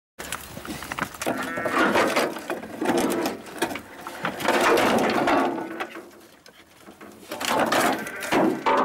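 Excited terriers whining and yelping in three spells, with knocks and scrapes from corrugated sheets and boards being lifted.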